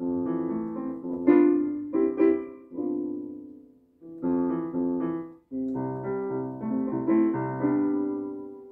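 Electronic keyboard played with a piano sound: a slow melody over chords, in phrases broken by short pauses about four and five and a half seconds in. The last chord fades out near the end.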